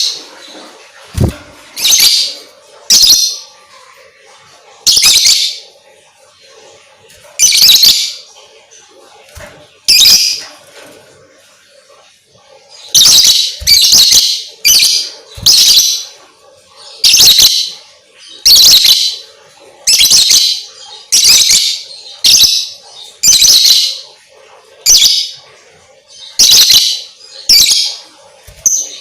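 Lovebird giving loud, high-pitched calls in short bursts, a few seconds apart at first, then coming about once a second from about halfway through.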